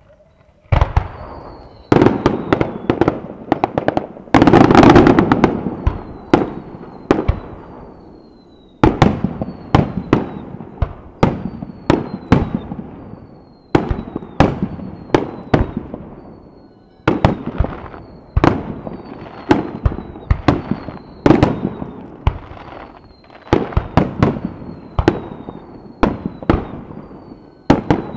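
Japanese aerial firework shells firing and bursting in quick succession, a string of sharp booms about one or two a second, each ringing on. A denser run of bursts comes about four seconds in.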